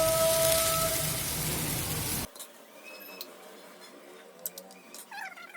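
Vegetables and tomato frying in a kadai, sizzling as the ground coconut kurma paste goes in and is stirred. The sizzle cuts off abruptly about two seconds in, leaving only faint clicks and taps.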